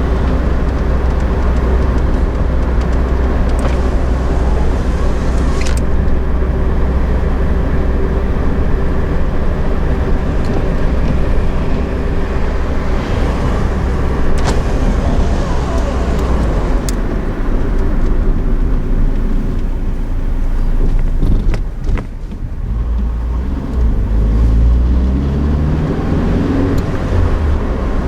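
1989 Honda Accord LXi's four-cylinder engine and road noise heard with the windows down while driving, a steady low rumble. Near the end the engine pitch climbs as the car accelerates. The car has a deep rattling/knocking noise that was traced to a failing water pump pulley.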